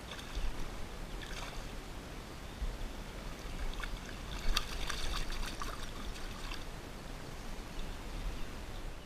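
Creek water running steadily, with short bursts of splashing and trickling about a second in and again from about four to six seconds in.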